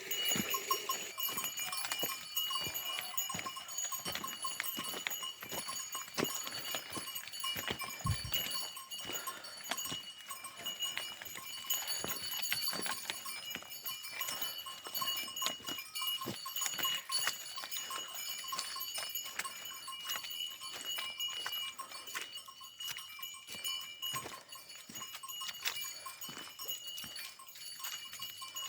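Bells on a herd of grazing livestock ringing and clanking steadily as the animals move along, with many small clicks and knocks among them.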